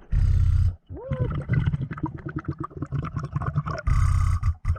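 A diver breathing through a dive regulator underwater: two loud rushes of exhaled bubbles, one at the start and one about four seconds in, each under a second long, with gurgling in between.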